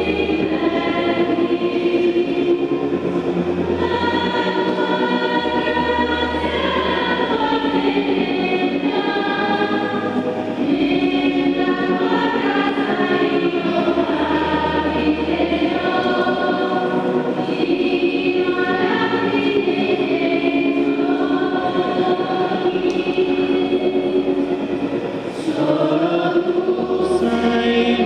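Church choir singing a slow hymn during communion, with held low bass notes underneath that change every couple of seconds.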